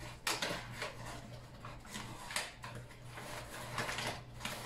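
Paper flour bag rustling and crinkling in repeated short bursts as it is handled, over a faint steady low hum.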